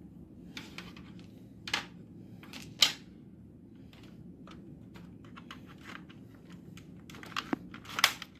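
Scattered plastic clicks and knocks of a mains plug and cable being handled and pushed into a socket, sharpest about three seconds in and again near the end, over a faint steady low hum.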